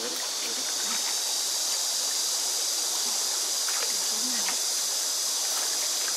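Shallow stream running steadily over stones, a continuous rushing hiss, with a few small splashes from hands working in the water.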